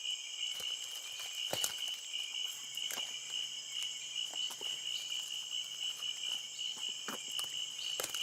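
Steady high-pitched chorus of forest insects, with a few faint short snaps or rustles.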